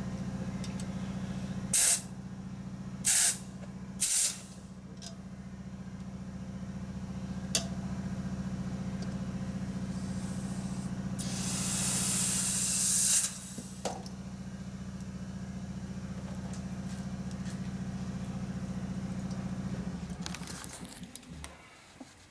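Compressed air hissing from an air chuck into a motorcycle inner tube: three short bursts in quick succession, then a longer hiss of about two seconds. Underneath runs a steady motor hum that stops near the end.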